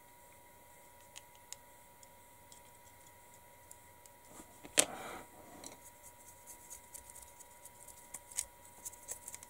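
Faint scratching and small clicks of a weathering pencil and then a paintbrush working over a small plastic model truck chassis held in the fingers, with one sharp click about five seconds in and more frequent small clicks after it.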